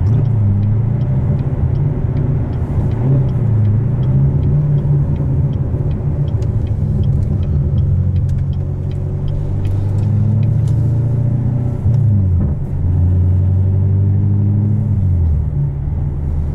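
Loud, low exhaust drone of a C7 Corvette Stingray's V8 with headers, a cam and a muffler-delete exhaust, heard from inside the cabin while cruising in Tour mode. The engine note dips briefly about twelve seconds in and settles to a lower pitch about fifteen seconds in.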